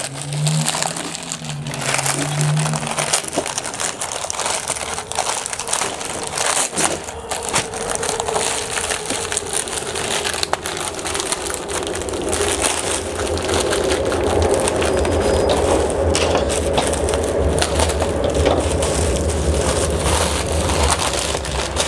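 Plastic mailer bag being torn open and crumpled by hand: a continuous crinkling and crackling of thin plastic.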